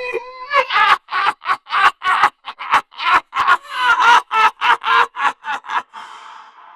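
Creepy ghost-laugh sound effect: a voice laughing in quick, even pulses, about four a second, for some five seconds, then trailing off into a breathy hiss that fades away.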